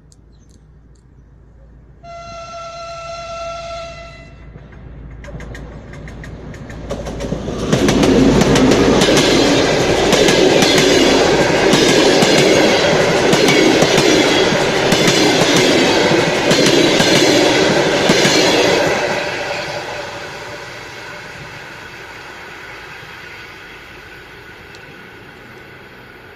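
TEP60 diesel locomotive sounds one note on its horn for about two seconds. It then passes at the head of its passenger train: loud engine and wheel noise with a regular clatter of wheels over rail joints. The sound fades after about 19 seconds as the coaches roll on.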